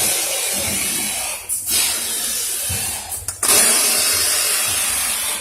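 Steady rasping, hissing noise from workshop machinery, like a power tool at work, breaking off briefly about a second and a half in and again past three seconds.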